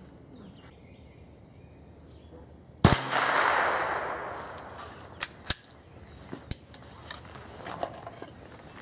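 A single .22LR rifle shot from a Keystone Sporting Arms Crickett single-shot bolt-action rifle: one sharp crack about three seconds in, with its echo fading over a second or so. A few seconds later come several sharp metallic clicks as the bolt is worked.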